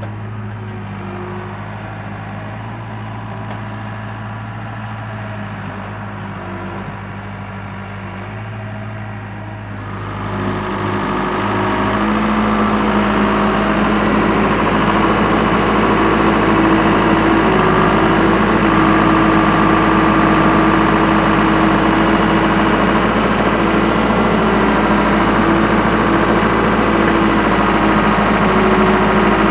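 Skid steer loader engine running steadily at low revs. About ten seconds in it speeds up and gets louder, then holds at the higher speed.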